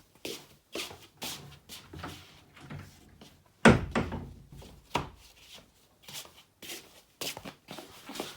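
A series of short knocks and clunks, about two a second, from objects being handled and set down, with one heavy thump about three and a half seconds in.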